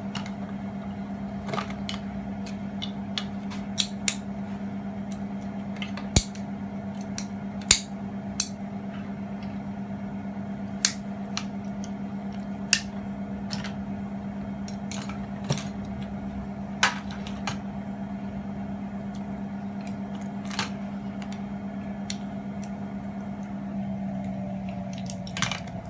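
Plastic plug casings and small brass and metal parts clicking and knocking at irregular intervals as electrical plugs are taken apart by hand, over a steady electrical hum that eases off near the end.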